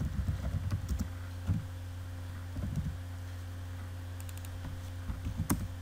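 Computer keyboard typing in short bursts of keystrokes, with one sharper click near the end, over a steady low hum.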